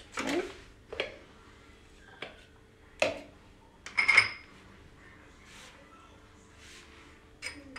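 Kitchen utensils knocking and clinking: a steel spoon and small ceramic spice bowls being set down and picked up, a few separate knocks with one louder ringing clink about four seconds in.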